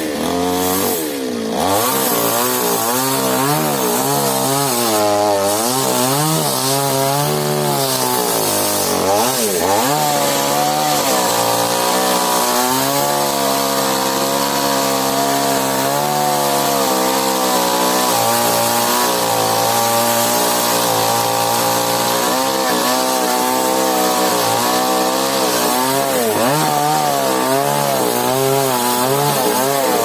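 Stihl chainsaw running hard and cutting through a mahogany trunk, its engine pitch dipping and recovering as the chain bogs under load. It drops sharply and revs back up twice, near the start and about ten seconds in.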